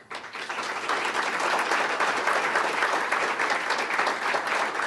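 Audience applause: many people clapping, swelling up within the first second and holding steady.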